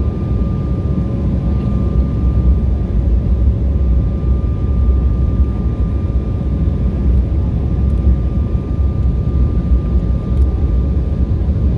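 Steady cabin noise inside a passenger jet in flight with its wing spoilers raised: a deep, even rumble with a thin steady whine above it.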